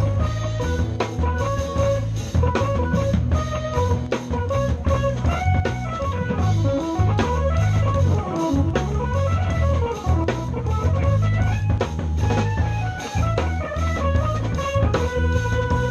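Live jazz-fusion power trio playing: an electric guitar plays quick melodic runs over a busy drum kit and electric bass. About halfway through, the guitar line runs down and back up in quick scale-like passages.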